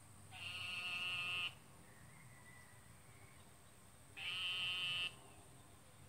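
A frog calling twice, each a high-pitched call about a second long, the two about four seconds apart; the uploader wonders whether bullfrogs make the noise.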